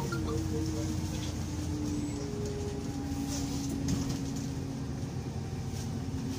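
City bus's interior noise while driving: a steady low rumble from the engine and drivetrain, with a faint whine that drifts slowly lower in pitch and a few light rattles in the cabin.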